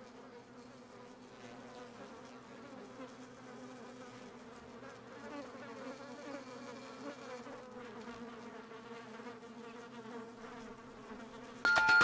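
Faint, steady insect buzzing like a wasp's wings, its pitch wavering slightly. Near the end a loud musical jingle cuts in suddenly.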